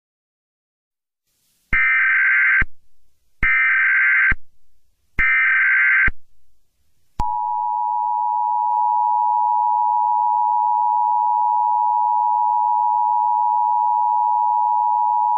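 Emergency Alert System tones: three bursts of SAME header data, each about a second long, then the steady two-tone EAS attention signal, held for about eight seconds.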